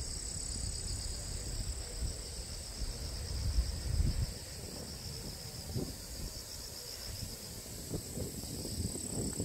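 Insects trilling steadily in high, even pulses, with gusts of wind rumbling on the microphone that are strongest around three to four seconds in.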